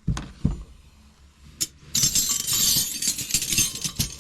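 Two dull thumps, then from about two seconds in a busy clinking and jangling of steel hand wrenches knocking together as they are handled and set down.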